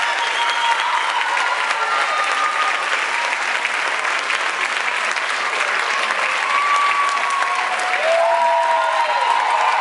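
Audience applauding steadily, with a few voices calling out over the clapping near the end.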